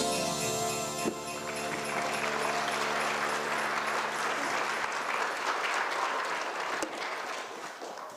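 Music stops about a second in, and audience applause follows and gradually dies away.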